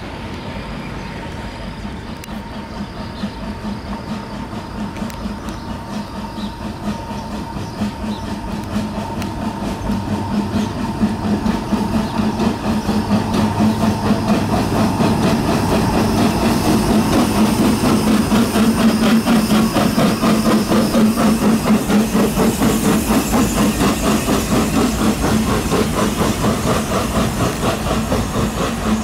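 Old steam rack (cogwheel) locomotive No. 5 of the Brienz Rothorn Bahn chugging uphill under load, pushing its coach, with a fast even beat of exhaust puffs. It grows louder as it draws near and passes, then eases slightly as it pulls away.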